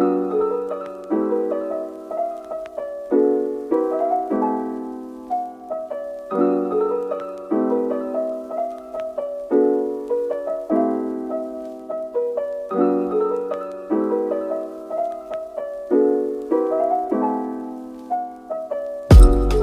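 Background piano music: soft chords struck about once a second, each ringing and fading. It is cut off near the end by a sudden loud thump.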